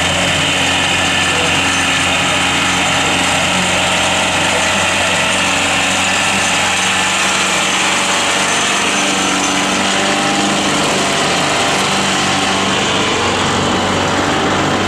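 Old Mercedes-Benz Unimog 411's four-cylinder diesel engine running at steady, low revs as the truck crawls up a muddy slope and past, its pitch holding level throughout.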